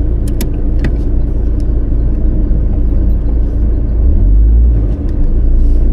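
Camper van driving slowly across a field: a loud, steady low rumble of the engine and tyres, with a few sharp clicks in the first second.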